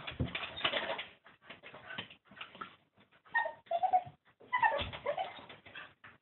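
Young cockapoo whimpering and whining in short high cries, several of them falling in pitch, in frustration at squirrels beyond the window.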